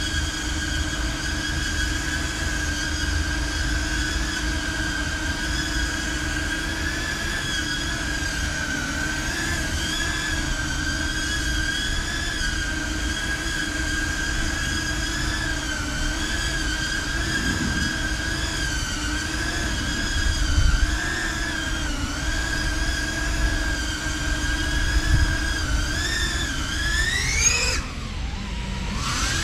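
FPV quadcopter's brushless motors spinning small 3-inch five-bladed propellers, a steady high-pitched whine that wavers slightly as the drone holds a hover. Near the end the whine climbs sharply in pitch, then drops away.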